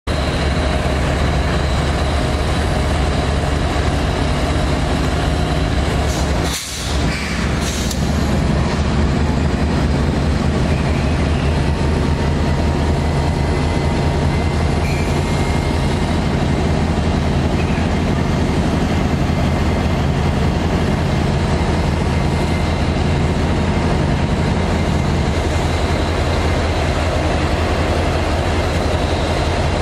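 A heavy diesel engine runs steadily with a low, even rumble, its level dipping briefly about six and a half seconds in.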